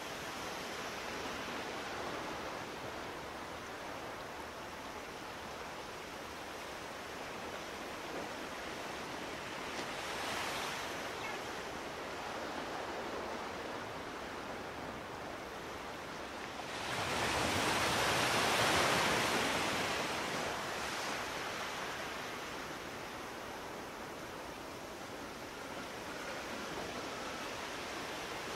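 Steady rushing outdoor noise with no distinct events. It swells to a louder rush about seventeen seconds in for a few seconds, with a smaller swell around ten seconds.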